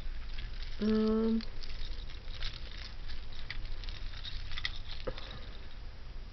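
Light clicking and rattling of small beads as tangled seed-bead necklaces are handled and pulled apart. A short hummed "mm" comes about a second in.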